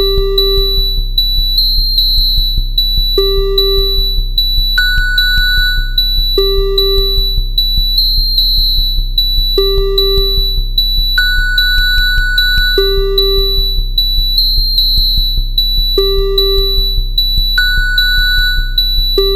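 Synthesized emergency-alert alarm music. A steady low drone runs under a pure synth note that repeats about every one and a half seconds, with a higher note every few repeats. Thin steady high tones and a fast, even ticking beat play over it.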